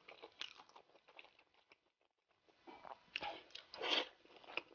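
Close-up mouth sounds of a person chewing food: soft wet clicks, a brief lull, then a run of louder smacking chews about three seconds in.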